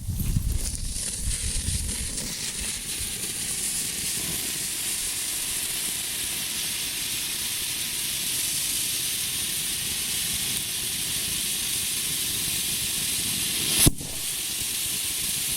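Homemade firework fountains ('volcanoes') spraying sparks with a steady hiss, rougher and louder in the first second or two. A single sharp pop comes near the end.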